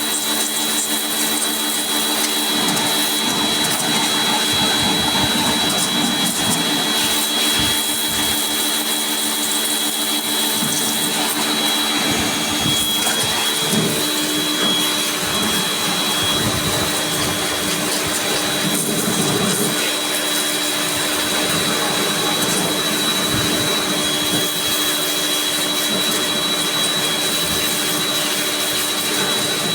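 A motorised cleaning machine running steadily: a constant high whine over a rushing noise, with no pauses.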